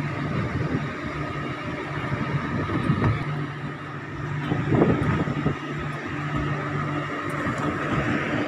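An engine on board a fishing boat runs steadily with a low, even drone, and there is a brief louder knock or bump about halfway through.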